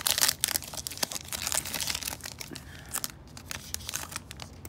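Foil wrapper of a Prizm basketball card pack being torn open and crinkled: a dense run of sharp crackles over the first few seconds. The crackles then thin to fainter rustles as the cards are slid out of the wrapper.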